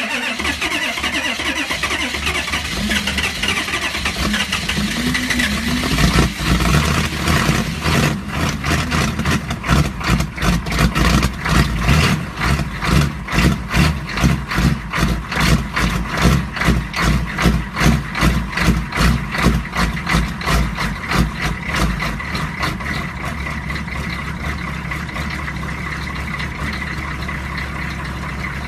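Diesel engine cold-starting in freezing weather: a hard start with heavy, uneven pulsing for about fifteen seconds, then settling into steady running near the end.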